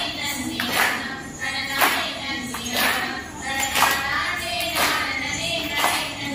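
Valli kummi folk dance: a group of dancers clapping together about once a second while voices sing the kummi song.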